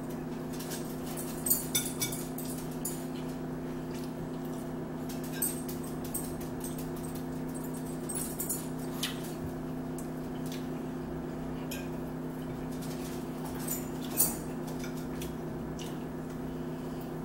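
Quiet eating sounds: forks clicking and scraping on plates, and chewing. A few sharper clicks stand out, the loudest about fourteen seconds in, over a steady low hum.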